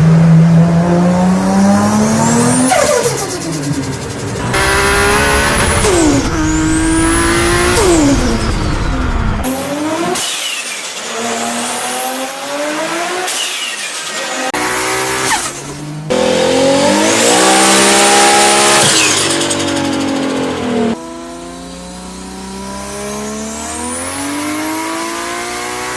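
Turbocharged Toyota Supras revving one after another, each recording cutting abruptly to the next. The engine pitch rises and falls with every rev, a high turbo whistle climbs with the throttle, and the turbos flutter with a "stututututu" as the throttle snaps shut.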